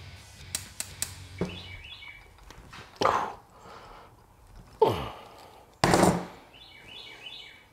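Hand ratcheting crimper closing a ring terminal onto a bundle of twisted wires: a few light clicks, then two loud squeezes of the handles about three seconds in and just before five seconds, and a thump about six seconds in as the crimper is set down on the bench mat.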